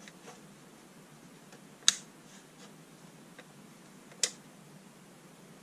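Two sharp clicks about two and a half seconds apart, with a few faint ticks between: a switch on a lantern torch being flicked as its newly converted LED lights are tried.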